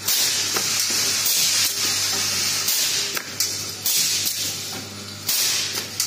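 Automatic resistance butt welding machine for D-rings and triangle buckles cycling: loud hissing bursts repeat every second or so, with sharp clicks between them and a steady low hum underneath.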